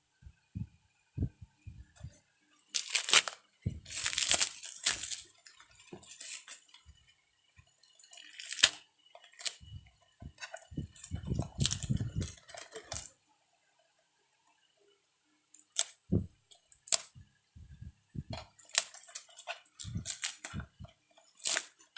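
Packaging around an e-bike charger being cut and torn open by hand: irregular rustling and tearing bursts with scattered clicks and knocks, and a quiet stretch around the middle.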